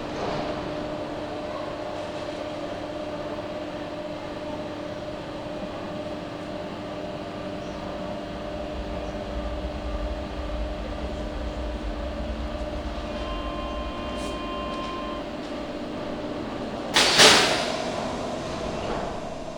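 Subway train at the platform: a steady electrical hum with a low rumble in the middle. About 13 seconds in comes a short electronic tone, and about 17 seconds in a loud, sudden hiss of compressed air that fades away.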